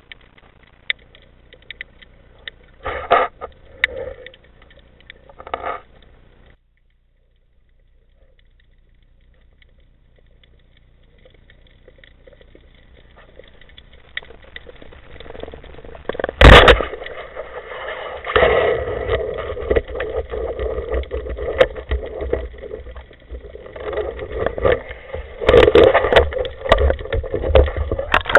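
Water noise and knocks picked up by an underwater camera, silent for a moment about seven seconds in, with one sharp crack about sixteen seconds in followed by a loud, uneven rushing.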